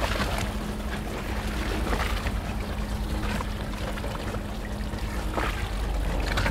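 A fishing boat's engine running steadily with a low hum, under the splashing and trickling of water around the boat.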